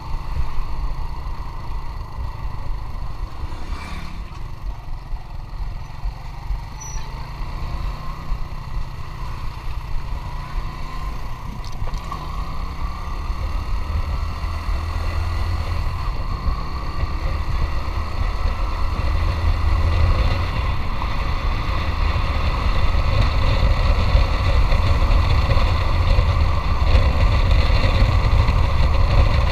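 Motorcycle engine running while riding, its note rising slowly as it picks up speed, with wind rumbling on the camera microphone and growing louder toward the end.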